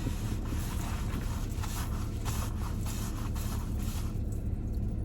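Close-up chewing of a soft bread, egg and bacon sandwich: irregular wet, crackly mouth sounds that thin out about four seconds in, over a steady low rumble.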